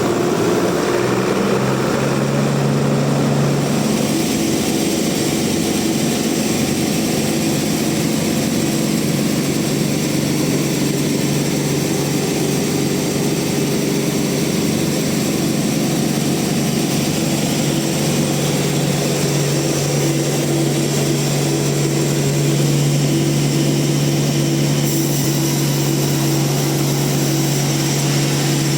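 Band sawmill running with a steady machine hum that holds level throughout and grows a little fuller and brighter about four seconds in.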